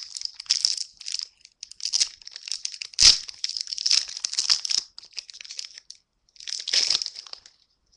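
Magic: The Gathering Innistrad booster pack wrapper crinkling and tearing as it is opened. There is a sharp, loud rip about three seconds in, a pause, and another crinkling burst near the end.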